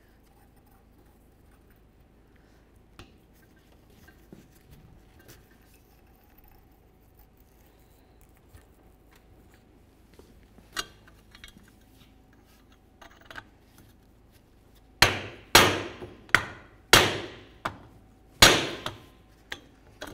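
Hammer blows on a long steel driving tube, seating a spacer on the driveshaft against the newly installed carrier bearing: five sharp metallic strikes with a ringing tail, starting about three quarters of the way in. Before them, only a few faint light clicks of parts being handled.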